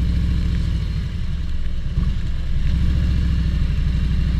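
Harley-Davidson touring motorcycle's V-twin engine running at low steady revs, easing off slightly about a second in and pulling again from about two seconds, with a steady hiss of wind and wet road above it.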